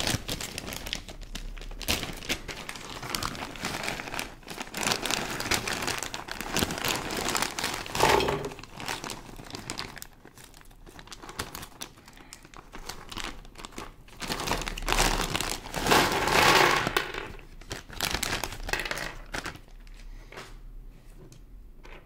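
Clear plastic bag crinkling as hands handle and open it. The rustling comes on and off in uneven bursts, easing for a few seconds past the middle and loudest shortly after.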